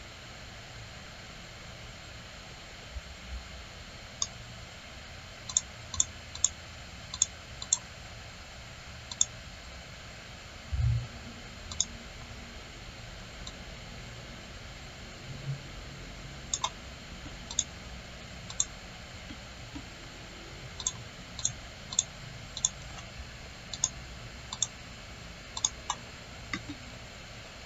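Computer mouse clicking: irregular single sharp clicks, some in quick pairs, over a steady faint hiss, with a low thump about eleven seconds in.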